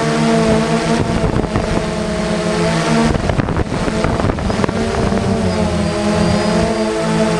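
Quadcopter's electric motors and propellers buzzing in flight, their pitch wavering up and down with the throttle. Rough wind buffeting on the microphone breaks in from about one to five seconds in.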